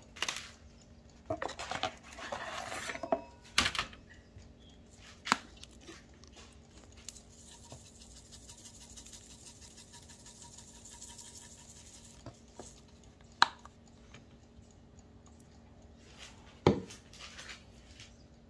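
Metal kitchen utensils knocking and scraping on a steel tray, several sharp clacks in the first few seconds, then a soft hissing rattle for several seconds as dried herbs are shaken from a glass jar, and two more single knocks later on. A low steady hum runs underneath.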